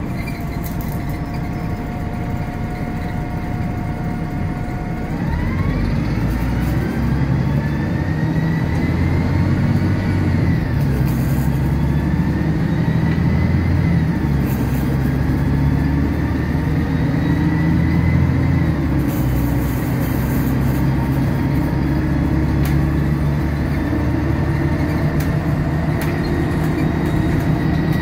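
MAN 18.220 single-deck bus heard from inside the passenger saloon: the diesel engine rumbles along steadily at first. About five seconds in, the bus pulls away and accelerates, and a whine rises, drops back and climbs again several times as it goes up through the gears.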